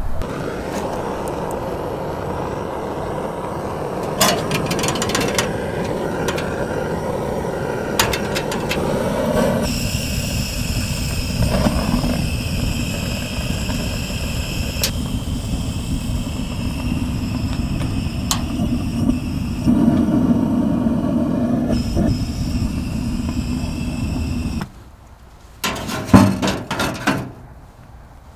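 Handheld butane torch flame jetting steadily into the stove's firebox to preheat the stove pipe for draft, its tone shifting about a third of the way through. The flame cuts off near the end, followed by a few sharp metallic clicks and knocks.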